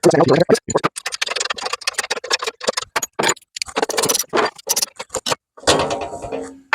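Hand tools clicking and scraping against metal: a ratchet wrench and fasteners being worked as the screws holding the mower's belt deck covers are loosened. Quick, irregular clicks with short scrapes, pausing briefly near the end.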